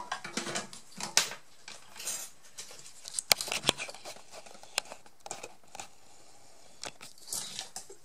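Scattered small clicks, taps and rustles of hands handling a laptop motherboard and small tools on a workbench mat, with the sharpest clicks about three to four seconds in.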